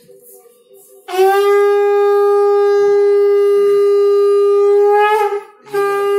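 A woman blowing a conch shell (shankha) at a Hindu ritual: one long, steady blast of about four seconds starting about a second in, its pitch lifting slightly just before it breaks off, then a second blast starting after a short pause for breath near the end.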